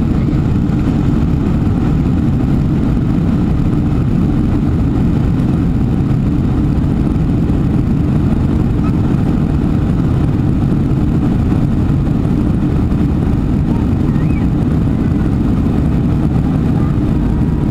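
Steady, deep cabin noise of a Boeing 747-400 in flight after takeoff: engine and airflow noise heard inside the passenger cabin from a window seat over the wing.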